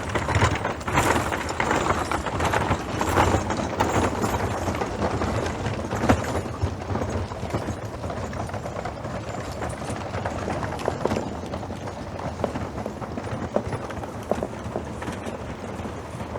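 Horse hooves clip-clopping: a dense, irregular run of hoof strikes, louder for the first several seconds and then quieter.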